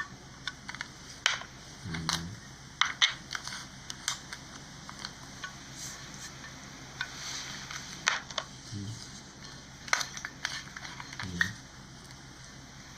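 Slime being squeezed and pressed by hand, giving irregular sharp crackling pops and clicks, sometimes in quick clusters.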